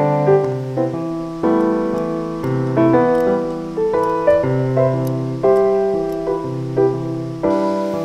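Background piano music: a gentle melody of single notes struck and left to ring, about two a second.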